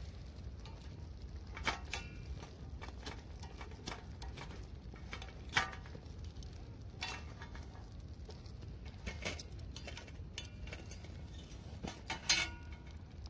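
Metal cookware and utensils being handled: irregular light clinks and taps, a few with a short metallic ring, the loudest about two seconds in, near six seconds and near the end, over a steady low rumble.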